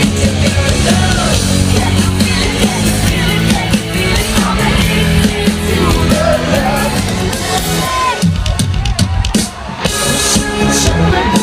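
Loud live pop concert music over an arena sound system: a band with drum kit, bass and singing, heard from within the crowd. The bass and drums thin out briefly about eight seconds in, then come back.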